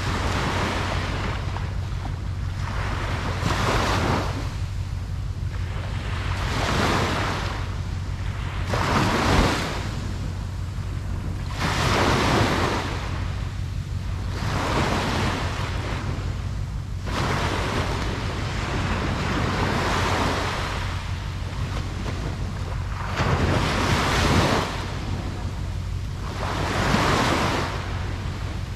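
Ocean waves breaking on a beach, the surf swelling and washing back every two to three seconds over a steady low rumble of wind.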